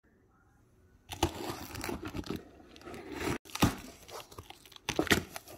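A taped cardboard shipping box being torn open: packing tape ripping and the cardboard flaps crackling and scraping as they are pulled apart, starting about a second in.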